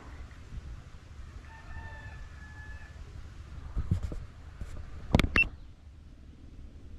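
A rooster crowing once, faint and held for about a second and a half, over a low rumble. Two sharp knocks follow, the louder one about five seconds in.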